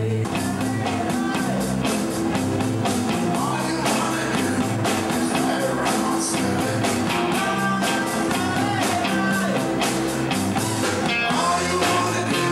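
Live rock and roll band playing, with a steady beat and guitar, and a harmonica played cupped against a hand-held microphone carrying a wavering lead line.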